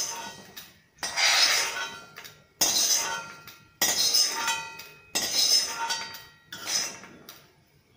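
Metal spatula scraping and knocking against a nearly empty iron kadai, about five strokes a second or so apart, each ringing briefly as it fades. The strokes scrape freshly roasted fenugreek seeds out of the pan.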